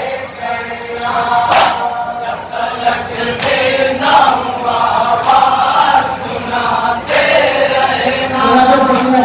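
Group of men chanting a nauha, an Urdu lament, in unison, with a sharp slap of hands striking chests (matam) together about every two seconds, five times.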